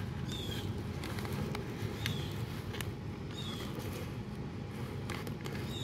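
Water pouring from a plastic watering can onto potting soil in a pot, a steady soft splashing. A short high chirp repeats about once a second in the background.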